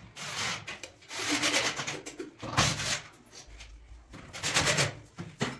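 Cordless drill working into a plywood cupboard frame in several short bursts, with the grinding rasp of the bit or screw biting into the wood.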